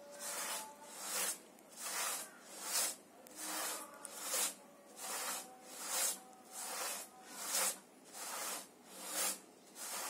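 A two-man pit saw rasping through a large log, one rasping cutting stroke about every three-quarters of a second in a steady rhythm.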